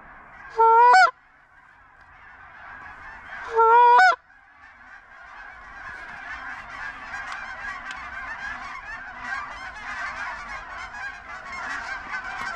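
Two loud, close honks, each sweeping sharply up in pitch at the end, then a large flock of snow geese calling together, a dense chorus of many overlapping honks that builds steadily louder.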